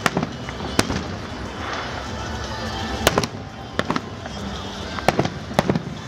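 Fireworks aerial shells bursting: a string of sharp bangs at irregular intervals, several of them close together about three and five seconds in, over a continuous rumbling background.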